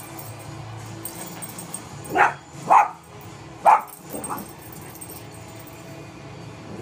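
Small dog barking four times in quick succession, starting about two seconds in; the last bark is fainter.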